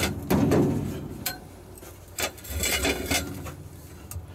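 Metal clanks and scraping as a long steel pipe lever works a rust-seized crane mechanism back and forth, the part slowly freeing up. A few sharp knocks, with a louder grating stretch about half a second in.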